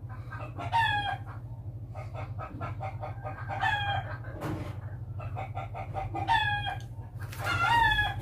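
Chickens calling in the background, with a string of short rising-and-falling calls repeating every few seconds over a steady low hum.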